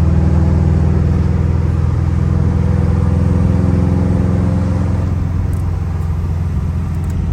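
Subaru WRX's turbocharged flat-four engine running steadily with a deep, even exhaust note. It eases slightly about five seconds in and picks back up near the end.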